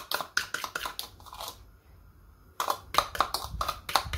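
A spoon scraping and tapping round the inside of a plastic bowl in quick strokes, emptying the last of the sauce. The strokes stop for about a second in the middle, then start again.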